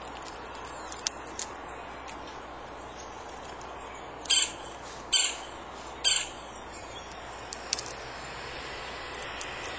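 Green jay giving three harsh, short calls about a second apart near the middle, over a steady outdoor background noise.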